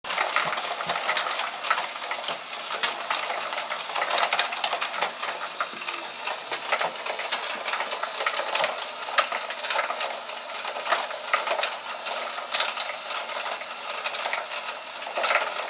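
Small plastic pieces of a Flush board game rattling and clicking in its plastic tray, a dense, uneven clatter of light clicks.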